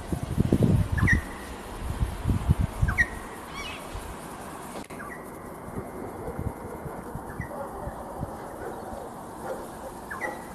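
A bird's short, sharp chirp, repeated every couple of seconds, with low rumbling on the microphone in the first few seconds.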